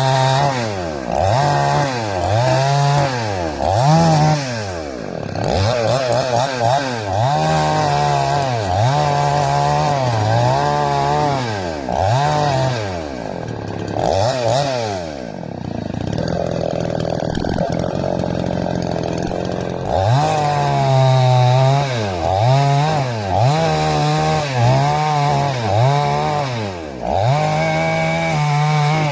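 Two-stroke chainsaw running hard, its engine pitch dropping and climbing again and again about once a second, with a steadier stretch about halfway through.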